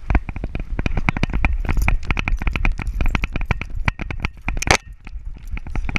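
A GoPro camera in a dog harness mount rattling and knocking rapidly as the beagle wearing it moves, several clatters a second with heavy low thumps and one louder knock near the end.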